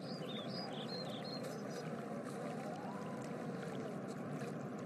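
Forest ambience of steadily running stream water, with a few short high chirps in the first second and a half.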